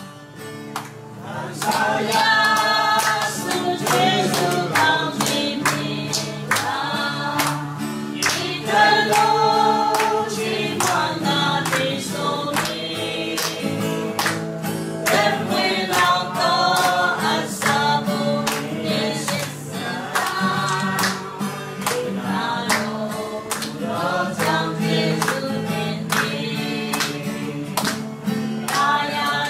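A group of people singing a song together to guitar accompaniment, with hands clapping along steadily to the beat, about two claps a second.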